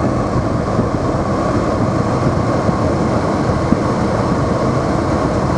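Steady engine and tyre noise of a car driving on a snowy town road, heard from inside the cabin.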